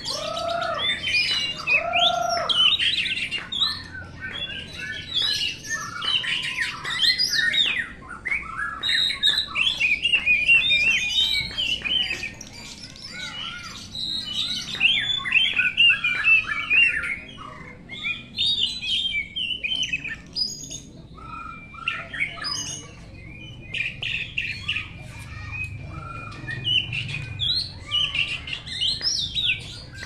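Oriental magpie-robin song: a long run of rapid, varied chirps, trills and whistles, with short lulls.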